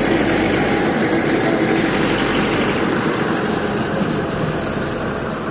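Heavy vehicle's engine running steadily at an even idle.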